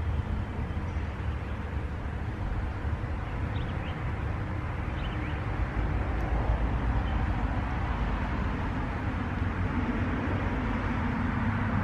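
Steady wind rumble on the microphone mixed with road traffic going by, with a vehicle's hum growing a little louder in the last few seconds.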